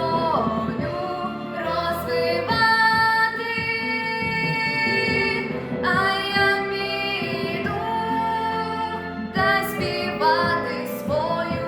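A girl singing a song with long held notes over an instrumental backing track.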